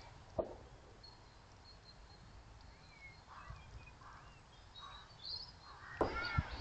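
Faint outdoor background with a few small bird chirps. A short knock sounds about half a second in, and a sharp click comes near the end.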